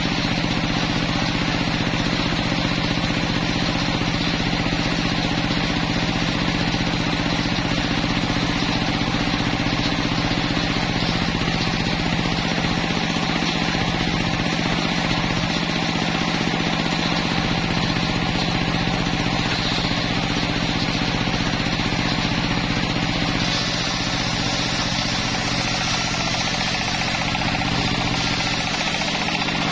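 Homemade circular sawmill running steadily, its motor drone joined by the large blade ripping lengthwise through a log.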